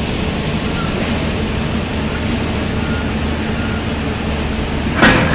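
Old hydraulic excavator's diesel engine running steadily, with a few loud knocks about five seconds in.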